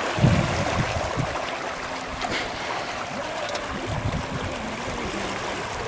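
Water rushing and splashing along the hull of a Reynolds 21 catamaran under sail, with irregular low thumps, the strongest near the start.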